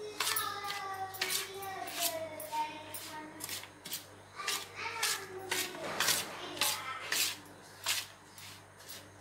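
Steel spoon scraping and clinking against a steel plate in quick repeated strokes as dry rava laddu mixture is stirred and scooped.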